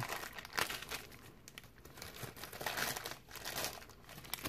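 Plastic packaging crinkling and crackling in irregular bursts as it is worked open by hand.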